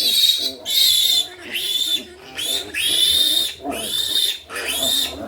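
Piglet squealing loudly in repeated high-pitched screams, about six cries each lasting under a second: the distress squeals of a young piglet being held and handled.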